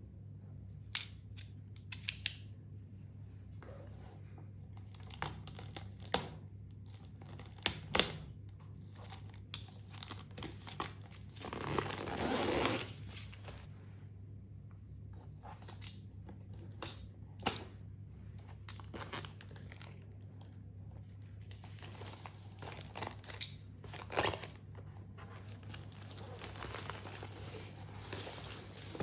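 Packaging being handled and unwrapped: scattered sharp clicks and taps, with crinkling and tearing of wrapping. There is a longer rustle about twelve seconds in, and more crinkling near the end.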